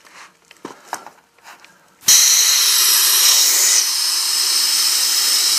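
A few faint handling knocks, then about two seconds in a loud, steady rush of air starts suddenly with a high whine in it: forced air being blown into a deer's lungs to reinflate them.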